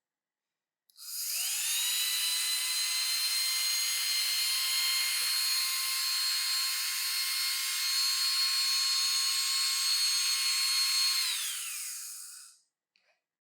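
A small electric motor in a power tool spins up about a second in, runs steadily with a whine for about ten seconds, then is switched off and winds down.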